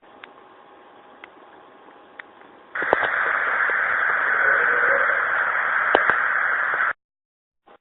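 Faint hiss with a few light clicks, then about three seconds in a much louder, steady static-like hiss with a couple of clicks. It cuts off abruptly about a second before the end.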